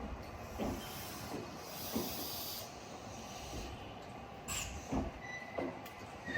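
Train at the station platform releasing compressed air: a high hiss for a second or two starting about a second in, with scattered light knocks. A steady high tone begins near the end.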